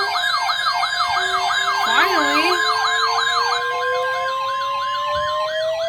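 Several sirens sounding together. One sweeps rapidly up and down, about two to three times a second. Another holds a steady tone that stops near the end, and a third climbs slowly in pitch.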